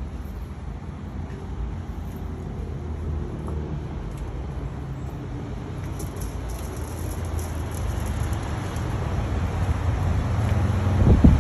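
A steady low rumble that slowly grows louder, with wind buffeting the microphone in gusts near the end.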